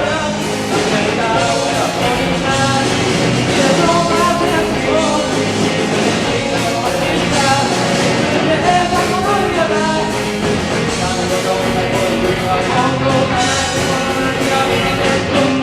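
A band playing a pop-rock song at a steady level, with a sung melody over it.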